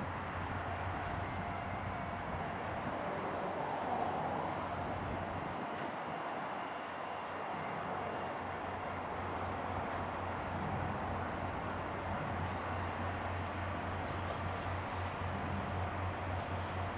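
Kominato Railway diesel railcar running, with a steady low engine hum and rail noise that dips for a couple of seconds in the middle.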